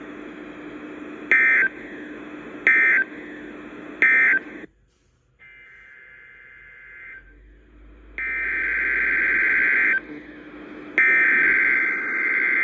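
NOAA Weather Radio SAME digital data bursts, a harsh two-tone warble. First come three short end-of-message bursts about a second and a half apart over a low steady hum. After a brief dropout come three longer header bursts of about two seconds each, the first one quieter. These open a second, repeated Required Weekly Test.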